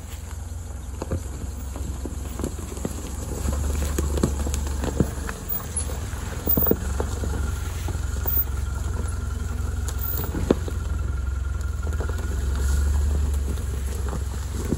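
4x4 crawling along a rough, narrow green lane: a steady low engine and drivetrain rumble with scattered knocks and clunks.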